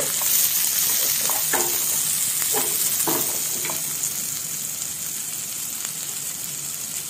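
Shredded cabbage and carrot sizzling in hot oil in a non-stick frying pan, stirred with a spoon for the first few seconds. The sizzle then goes on steadily, a little quieter, once the stirring stops.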